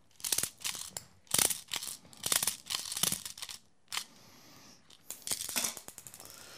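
Airsoft BBs being thumbed one at a time into the top of a WE Glock 26 gas blowback pistol magazine, each one clicking past the feed lips: a string of irregular clicks, with a quicker run of them just after five seconds.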